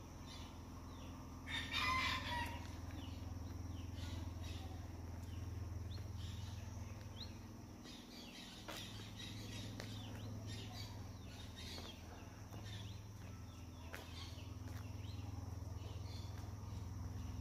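A rooster crowing, loudest about two seconds in, with small birds chirping.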